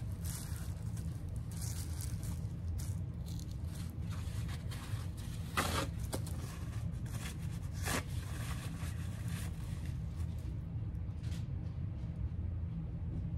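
Intermittent scraping and rustling as materials are handled at a painting table, over a steady low hum. The clearest scrape comes a little before the middle and another one shortly after.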